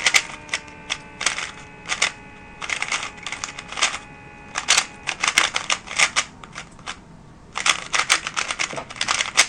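Moyu RS3M magnetic 3x3 speedcube being turned fast: rapid, crisp plastic clicking of the layers in four bursts, with short pauses between them.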